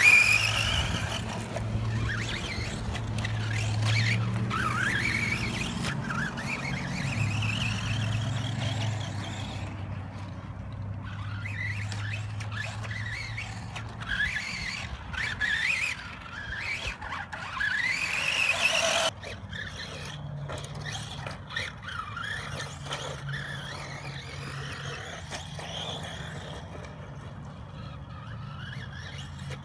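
Electric motors and gearing of vintage 2WD RC buggies whining as they are driven around a dirt track. The whine rises in pitch again and again with each burst of throttle. It is loudest right at the start, then drops off suddenly about two-thirds of the way through and goes on fainter.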